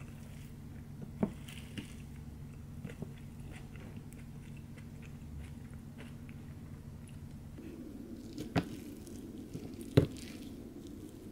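Someone eating fried rice: quiet chewing, with a few sharp knocks of a wooden spoon against a wooden bowl, the loudest about ten seconds in. A faint low hum sits underneath.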